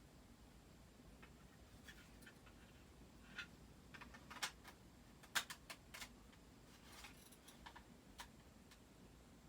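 Near silence: a Hunter Studio Series ceiling fan running very quietly on medium speed, with a scatter of faint, irregular clicks and ticks in the middle.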